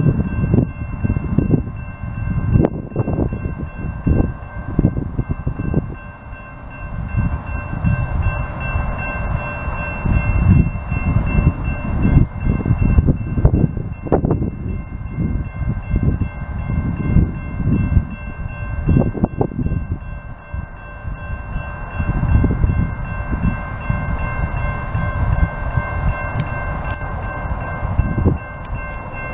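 Railroad grade-crossing warning bell ringing steadily while the crossing gates are down, with irregular low rumbling underneath.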